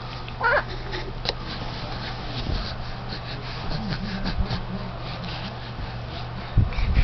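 A domestic cat gives one short, wavering meow about half a second in. A steady low hum runs underneath, and a dull thump comes near the end.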